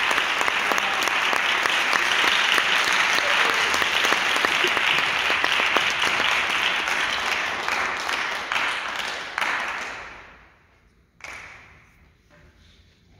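Audience applauding, with many claps, then dying away about ten seconds in. A single short, sharp noise comes about a second after the applause stops.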